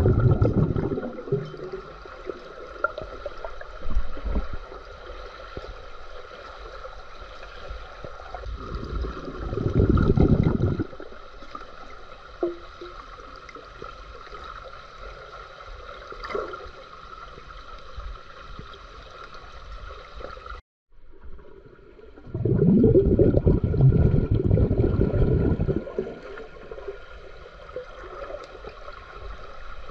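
Swimming-pool water heard underwater: a steady hum with three loud, low rushes of bubbling water, at the start, about ten seconds in and about twenty-three seconds in. The sound drops out for a moment just after twenty seconds.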